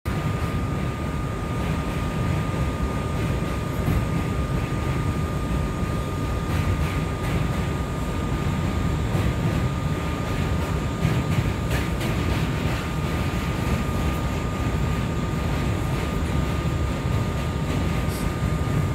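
R179 subway car running, heard from inside: a steady low rumble of wheels on track with a steady high-pitched whine over it and a few light clicks and rattles.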